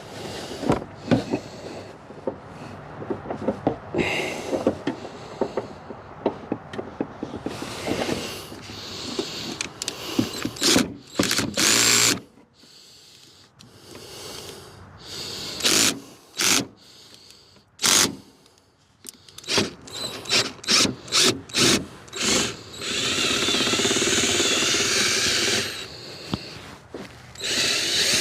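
Power drill run in short trigger bursts, then held for a steady run of a few seconds near the end, amid the clatter of tools and parts being handled.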